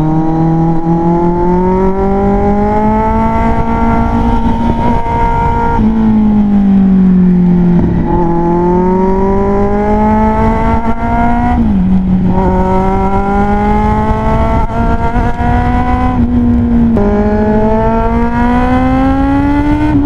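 Kawasaki Z800 inline-four motorcycle engine heard on board at speed. It pulls up through the revs, and its pitch drops suddenly at gear changes about six, twelve and sixteen seconds in. After the first change the engine slows briefly before pulling again, with wind rushing past the microphone.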